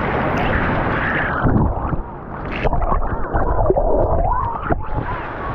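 Rushing wind and water noise on the microphone, then from about a second and a half in, muffled gurgling and bubbling as the camera goes under water.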